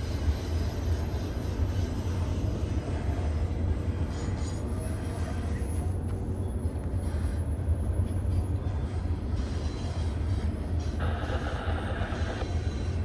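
BNSF freight train rolling past on the Cajon Pass grade: a steady low rumble of diesel locomotives and cars on the rails.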